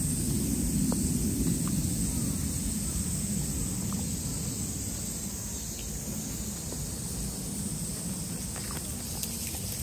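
Outdoor background noise: a steady low rumble with a constant high-pitched hiss over it, and a few faint ticks.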